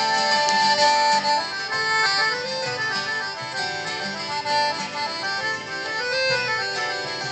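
Acoustic folk band playing a tune: piano accordion carrying the melody over strummed acoustic guitar and plucked upright bass.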